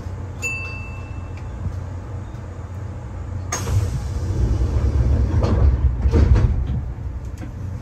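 Kintetsu 6020 series train standing at a platform, heard from the cab: a steady low hum, a short high beep about half a second in, then a sudden hiss of air about three and a half seconds in and a rumble that builds for about three seconds. This is typical of the train's sliding doors closing before departure.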